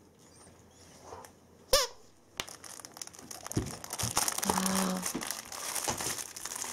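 Dog's plush toy being mouthed and chewed: one short squeak from the toy about two seconds in, then steady crinkling and crackling from the toy's crinkly insides, growing louder as the dog chews.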